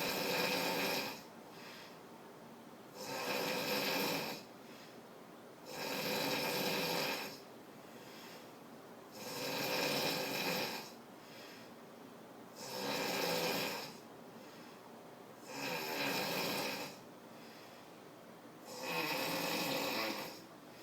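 Snoring in a steady rhythm: seven loud snores about three seconds apart, each lasting about a second and a half, with quieter stretches between them.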